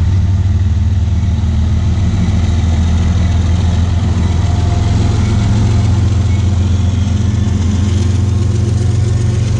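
Union Pacific diesel-electric freight locomotives passing close by, their engines running with a loud, steady deep rumble.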